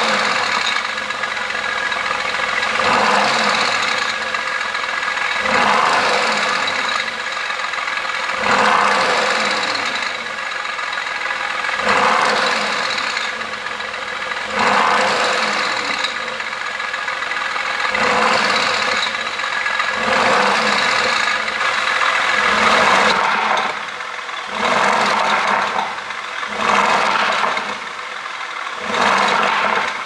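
Mercedes-AMG GT's twin-turbo V8 through its stock exhaust, revved repeatedly about every two to three seconds and dropping back toward idle between blips.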